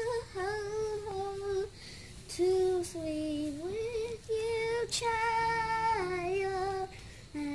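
A young girl singing wordless held notes that slide up and down in pitch, in short phrases.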